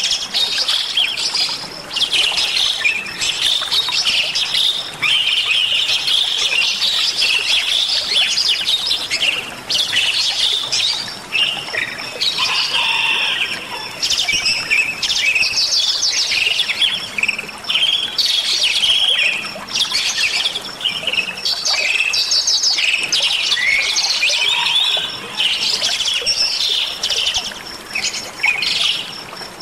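Bali myna singing energetically: a long run of rapid, varied whistles, chatters and squawks with a few short breaks.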